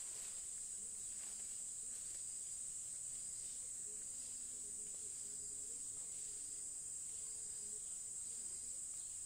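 A steady, high-pitched drone of forest insects, with faint short chirps repeating underneath.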